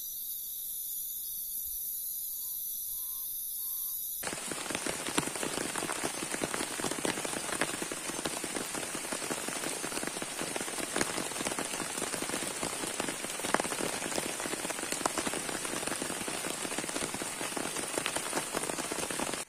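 Night insects, probably crickets, chirring steadily in a high pitch. About four seconds in this cuts abruptly to heavy rain falling around a hammock camp, a loud steady rush with many close drop hits.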